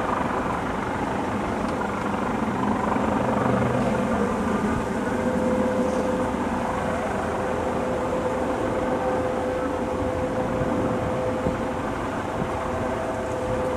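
Helicopter running steadily as it hovers low over a runway and sets down, an even engine-and-rotor drone with a steady whine.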